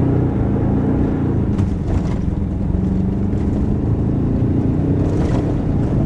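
Ford Ranger Raptor's 2.0-litre bi-turbo diesel engine under full-throttle acceleration in Sport mode, heard from inside the cab, pulling steadily as the truck gathers speed from about 30 to 80 km/h.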